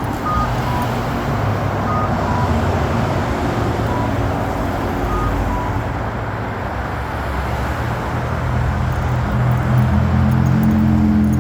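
Road traffic at an intersection, with an accessible pedestrian signal push button sounding a short two-note beep, high then low, about every two seconds through the first half. A vehicle engine grows louder near the end.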